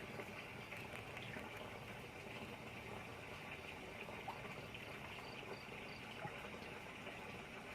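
Steady trickling, bubbling water running into a fishing pond, with a few faint ticks.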